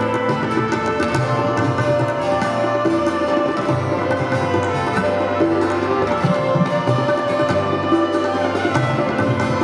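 Live band playing an instrumental passage of a Punjabi psalm setting (zaboor): sustained chords with a steady drum rhythm and no singing.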